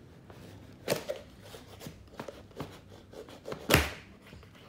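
A knife cutting the tape seals on a cardboard LEGO box, with scattered clicks and scrapes as the box is handled and a louder thump near the end.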